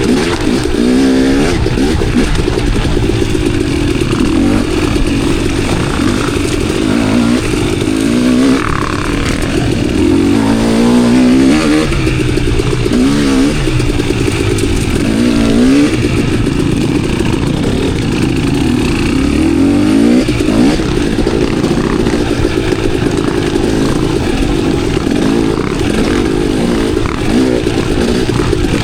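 Dirt bike engine being ridden along single track trail, revving up and dropping back again and again, with clattering from the bike over rough ground.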